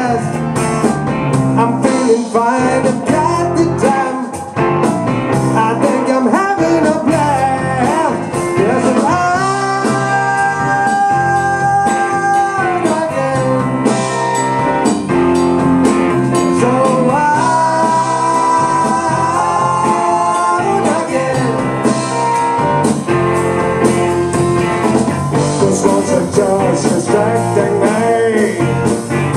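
Live rock band playing: electric guitar, bass guitar, drum kit and a Roland VR-09 keyboard, with long held notes partway through.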